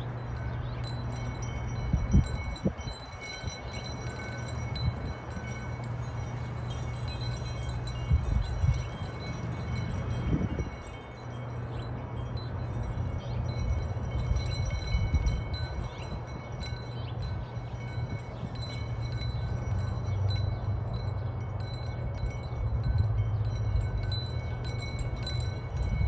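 Wind chimes ringing in the breeze, several high tones overlapping and sustaining. Under them runs a steady low hum, with a few low buffets about 2, 8 and 10 seconds in.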